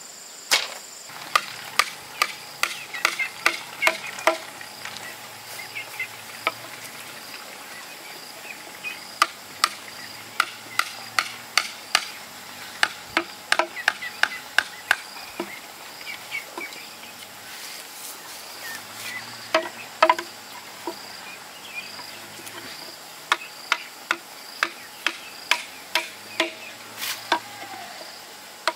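A blade chopping and shaping a bamboo peg: sharp, irregular knocks, at times two or three a second, with pauses between runs. A steady high insect trill runs underneath.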